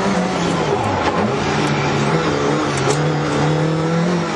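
Lada VFTS rally car's four-cylinder engine heard from inside the cabin under hard driving. The revs dip sharply about a second in, then climb again and hold high.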